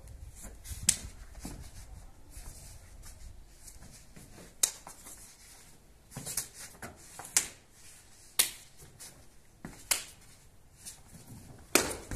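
About seven sharp snaps at irregular intervals from a martial artist's strikes and steps while performing a form, with faint rustling in between.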